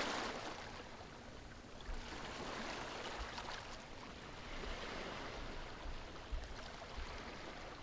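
Sea waves washing in, a soft hiss of surf that swells and eases in slow surges.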